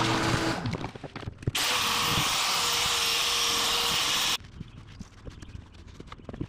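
Oscillating multi-tool running against the fiberglass in the corner of a boat transom, in edited clips that start and stop abruptly. The loudest stretch lasts about three seconds from about a second and a half in and cuts off suddenly. Lighter knocks and clatter come before and after it.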